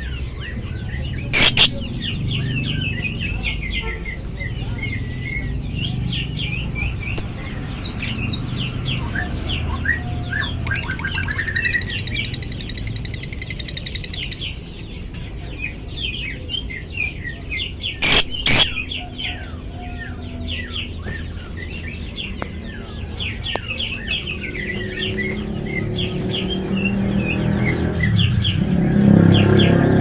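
Fischer's lovebird chattering in a rapid run of short high chirps and twitters, with a buzzy trill about halfway through. Twice, at about a second and a half in and again about eighteen seconds in, a sudden loud double crack cuts through. Low clucking builds near the end.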